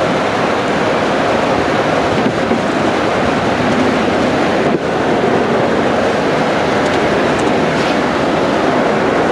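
Steady, loud road and wind noise of a police vehicle driving at speed during a pursuit.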